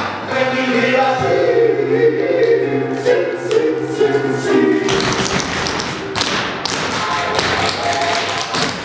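Recorded music with a held sung chord, mixed with tap shoes clicking on a wooden floor. About five seconds in, the held singing stops and the taps come to the fore in quick rhythm.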